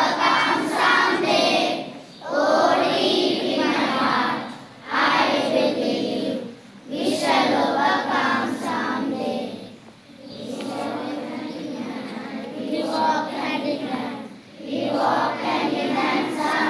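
A group of children singing together in unison, in phrases of a few seconds with short breaks for breath between them.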